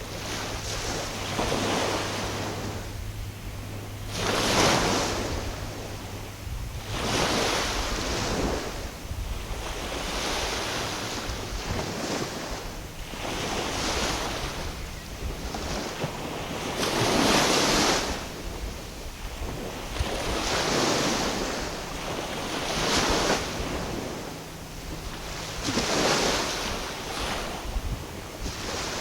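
Small waves washing in, a surge of water every two to three seconds, with some wind on the microphone.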